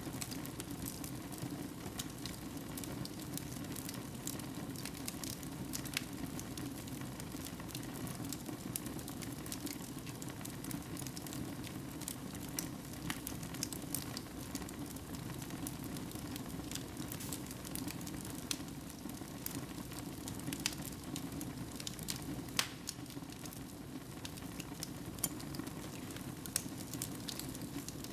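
Fire burning in a fireplace: a steady low rush of flames with frequent crackles and scattered sharper pops, a few louder snaps standing out now and then.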